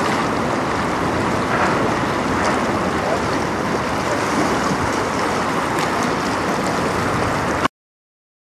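Steady rush of wind and fast-flowing river water at the shore, with no clear engine note, cutting off suddenly near the end.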